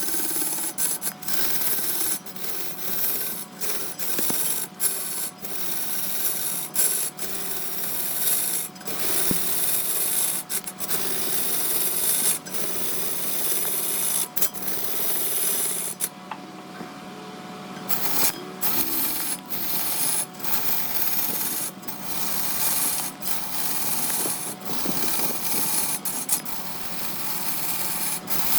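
A large wood lathe spinning a workpiece while a turning tool scrapes and cuts into the wood, a rough rasping sound broken by frequent sharp catches and breaks, over a faint steady tone.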